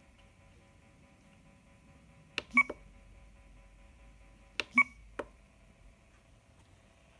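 FrSky Horus X12S radio transmitter: two button presses, about two seconds apart, each a click, a short beep from the radio's speaker and another click. Under them the speaker gives out a faint, steady electronic whine of several tones: the radio's unwanted noise fault.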